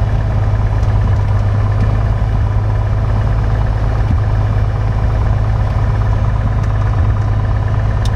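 Piper Cherokee Six's six-cylinder Lycoming engine and propeller idling steadily at around 1,000 to 1,200 rpm, heard from inside the cabin. It is running smoothly just after its first start following years of storage.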